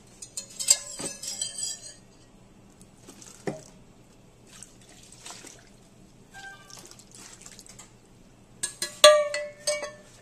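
Metal cookware clinking and clanking against a disposable aluminium foil pan as braising sauce is poured from the pot over cooked pork ribs. Scattered clinks at first, a single knock about three and a half seconds in, and the loudest clatter near the end.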